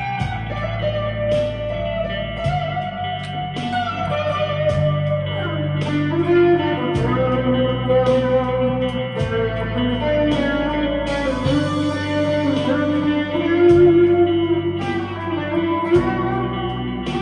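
Harley Benton CST-24 electric guitar played through a Vox AV15 amp's crunch channel with reverb, delay and chorus: a lead line of sustained, picked notes with several string bends.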